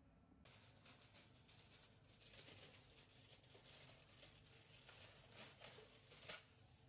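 Plastic sweet wrappers crinkling and rustling as a hand stirs through a dish of wrapped candies. It starts about half a second in, as dense, irregular crackling.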